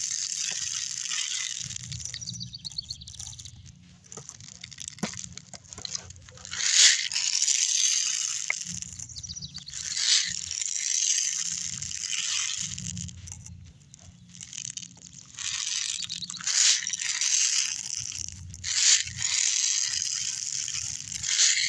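Hands fiddling with a BB pistol magazine while loading steel BBs: irregular rustling handling noise with a few sharp clicks, coming and going in bursts.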